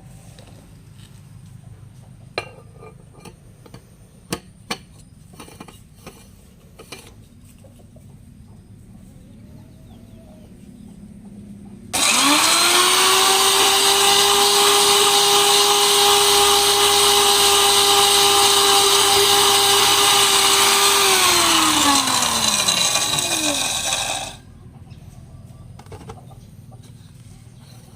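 A few light clicks and knocks, then an electric grinder switches on about halfway through and runs with a steady high whine and the hiss of coconut biscuits being ground. Near the end it is switched off, and the whine falls in pitch as the blade spins down.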